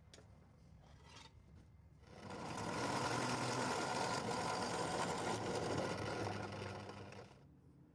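A power tool runs steadily for about five seconds, starting about two seconds in and stopping near the end.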